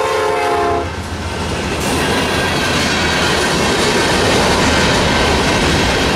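A diesel freight locomotive's air horn sounds a chord and cuts off about a second in. Then a string of loaded freight cars rolls past close by through the crossing, the wheels rumbling on the rails and growing louder.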